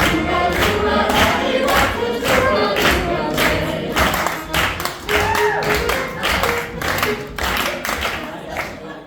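Group of voices singing an Irish folk song with a steady beat of strokes about twice a second, fading out near the end.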